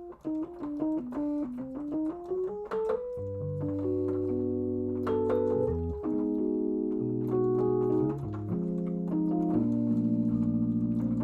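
Keyboard playing a quick single-note run of the A whole-half diminished scale, stepping down and then up, followed from about three seconds in by a series of sustained chords that change every second or two, moving toward a resolution in G major.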